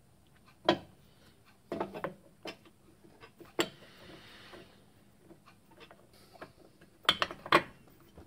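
Metal clicks and knocks as a spiral-finned aluminium exhaust muffler is handled and offered up to the exhaust port and studs of a Victa mower engine. A brief scraping rustle comes about halfway through, and a quick cluster of knocks comes near the end.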